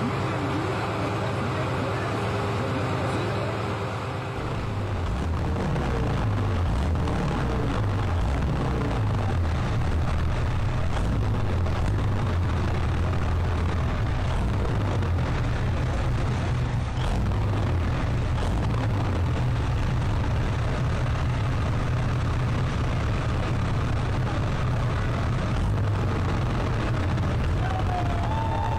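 Soviet tank V12 diesel engine of a giant custom motorcycle running: a steady idle for the first few seconds, then a deep drone whose pitch rises and falls a few times as the engine is revved, settling into a steady run as the machine rolls along.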